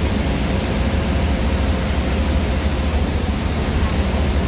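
Steady cabin noise of a bus at highway speed, heard from the driver's cab: a low engine rumble under an even hiss of tyres on the rain-soaked road.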